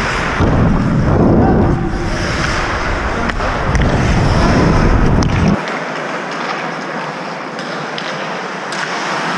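Ice hockey skating heard from a helmet-mounted camera: wind rumble on the microphone over the hiss of skate blades on ice, with a few sharp stick-and-puck clacks. The rumble cuts off a little over halfway through as the skater slows.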